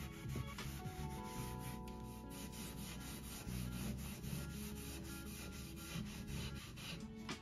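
Rubbing on wood as wax is worked into the restored school desk's surface, with soft background music of held notes beneath.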